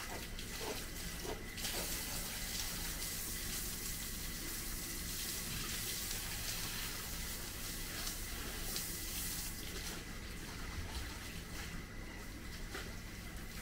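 Water running steadily, as from a tap, coming on about two seconds in.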